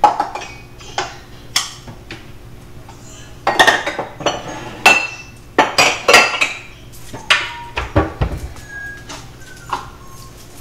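Dishes being put away into a cupboard: a series of sharp clinks and clatters, some ringing briefly, with a dull thud about eight seconds in.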